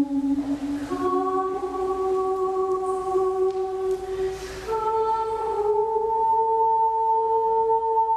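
Sustained vocal toning: long held notes that step up in pitch twice, about a second in and again near the middle, with a soft breathy rush before each new note.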